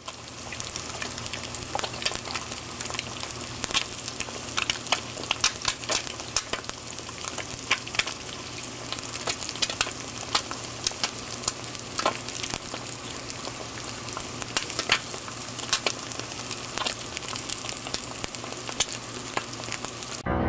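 Eggs frying in a pan: a steady sizzle with frequent sharp pops and crackles of spitting fat. It cuts off suddenly just before the end.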